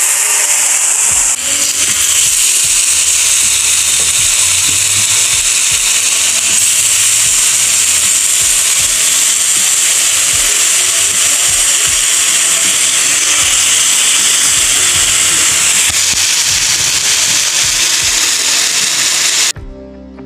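Marinated fish sizzling on a hot, oiled tawa griddle: a loud, steady hiss. It cuts off near the end and music begins.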